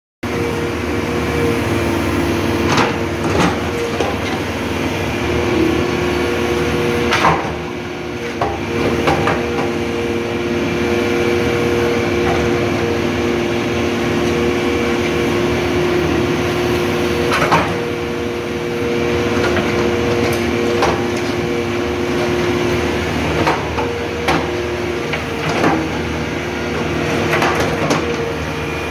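JCB backhoe loader's diesel engine running steadily with a constant hum, broken by a few sharp knocks and clanks.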